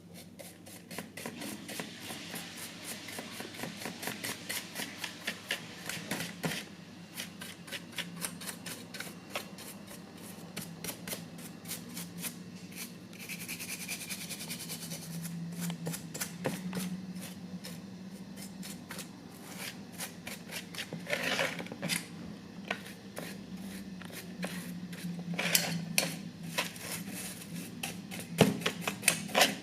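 Small hand-tool work on a model car body: rapid scraping and clicking strokes, with a few sharper knocks near the end, over a low steady hum.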